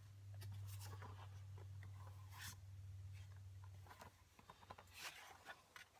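Pencil tracing around a pattern on leather: faint scratching strokes, clearest about two and a half and five seconds in. A low steady hum underneath stops about four seconds in.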